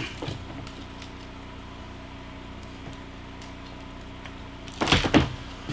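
Knocks from objects being handled, with a loud double clatter about five seconds in, over a steady low hum.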